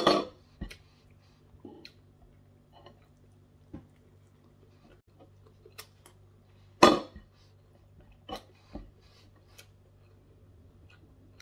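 Scattered light clicks and taps of a spoon and fingers against a dinner plate while eating, with two louder clinks, one at the start and one about seven seconds in, over a faint low hum.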